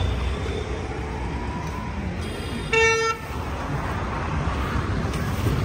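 A single short vehicle horn toot about three seconds in, over a steady low rumble of street traffic.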